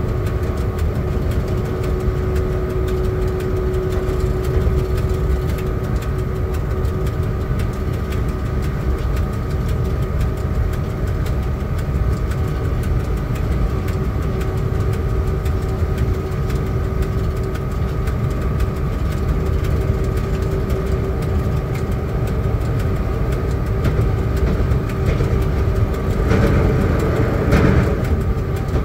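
Cab noise of a ChS4 electric locomotive: a steady low rumble with a constant hum of a few held tones, and a short, louder rush of noise near the end.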